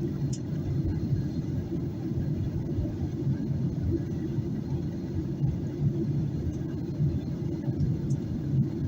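Steady low rumble inside the cabin of a Boeing 737-800 in flight, the engine and airflow noise heard from a rear economy seat at the start of the descent.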